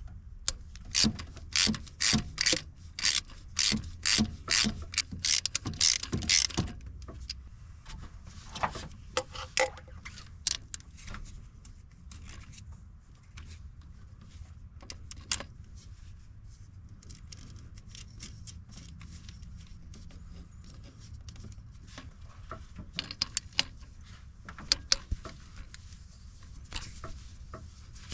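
Hand tools on metal: a ratchet wrench worked in quick, even strokes for the first six seconds or so, then scattered clinks and taps, and another flurry of clicks near the end.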